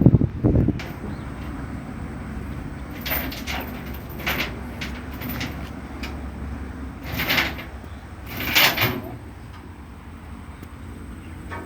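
Heavy diesel engine running steadily at low revs, with several short, sharp bursts of hissing or scraping noise over it.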